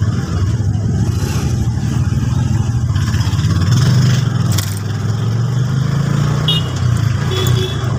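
Motorcycle tricycle's engine running while riding along a street, with road noise. The engine note rises slightly about three to four seconds in as it speeds up, then holds steady. Two short high squeaks come near the end.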